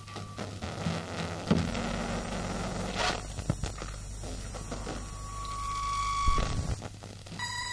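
Experimental electronic noise opening a remixed live track: a steady electrical hum under crackles and clicks, a held high tone about five seconds in, and a low rumble near the end.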